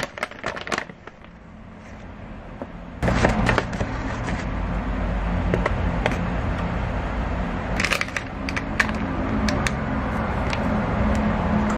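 Flour being poured into a glass measuring jug, with crackling clicks at first. About three seconds in it turns into a steady loud rushing hiss over a low hum, with a few sharp crinkles near the end.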